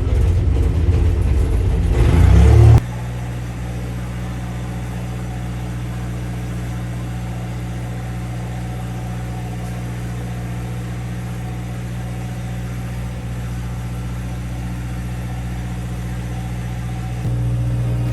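Steady low hum of a running vehicle engine. It is louder and rising for about the first three seconds, then drops suddenly to an even, steady hum.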